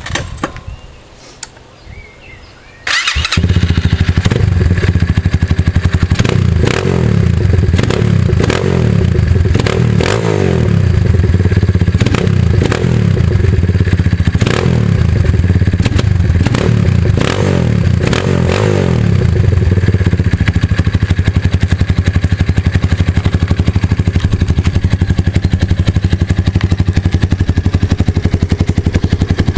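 Kayo K1 dirt bike's four-stroke single-cylinder engine starting about three seconds in, then revved in a string of quick throttle blips before settling into a steady idle, with a deep, rough exhaust note.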